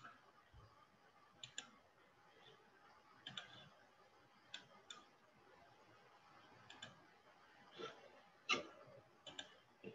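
Computer mouse clicking on a quiet desk: a dozen or so short clicks spread out, several in quick pairs like double-clicks, the loudest about eight and a half seconds in.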